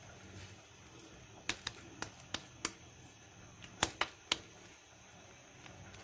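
A string of about eight short, sharp clicks and taps, irregularly spaced, from hands working cookie dough over a greased metal baking pan.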